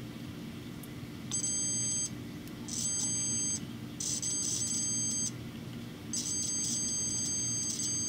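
Digital multimeter's continuity beeper sounding as its probes touch the screw terminals of a home-made cable: four high-pitched beeps, the last about two seconds long. Each beep signals that a wire connects through from one end of the cable to the other.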